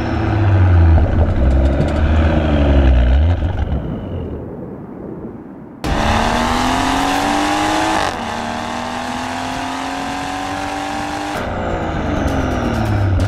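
BMW 440i's turbocharged inline-six through a catless downpipe and valved cat-back exhaust. It is first revved up and down in a parking garage, fading away. After a cut it accelerates hard with a steadily rising pitch, drops in pitch about eight seconds in as it shifts up, then climbs again, and near the end the pitch falls as it slows.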